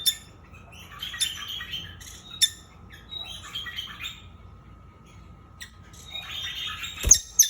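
A pet cage bird chirping and squawking in short harsh bursts while it is being caught by hand, with several sharp clicks and knocks in between, the loudest near the end.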